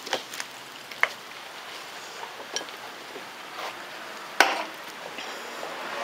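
Scattered sharp knocks and clicks from handling and moving things about, the loudest a single knock a little over four seconds in, over low room noise.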